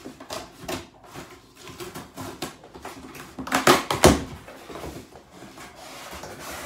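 Scissors snipping and scraping along the packing tape of a cardboard box. About three and a half to four seconds in, the cardboard flaps are pulled open with a loud scrape.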